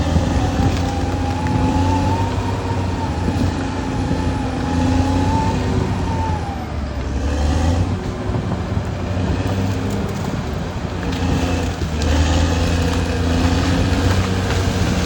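Caterpillar D6R XL bulldozer running steadily with a low diesel rumble. A high whine rises and falls over the first six seconds or so.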